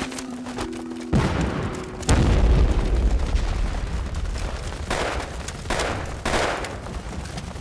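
Explosions dubbed into a war drama: a blast about a second in, then a bigger, deeper one a second later that rumbles on, and two more blasts later on.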